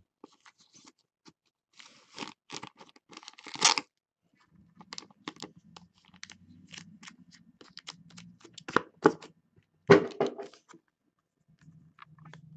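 Plastic card sleeve and rigid toploader rustling, scraping and clicking as a trading card is slid in and handled, in irregular clusters with the loudest scrapes near the end.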